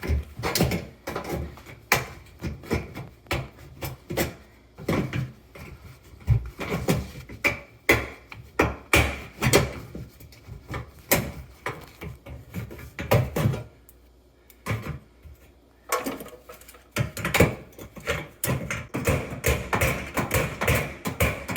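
Hand tools, tin snips and pliers, working the sheet-metal casing of a tabletop water heater around a pipe fitting: irregular metallic clicks, snips and clanks, with a short lull a little past the middle.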